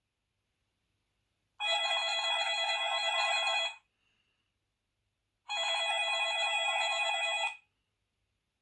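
A ringtone on the HTC Advantage X7500 phone, ringing twice: two rings of about two seconds each, with about two seconds of silence between them.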